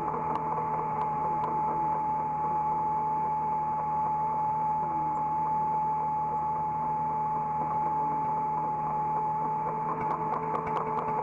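Hydraulic excavator running, heard from inside the operator's cab: a steady engine drone with a constant high whine over it, and a few light clicks near the end.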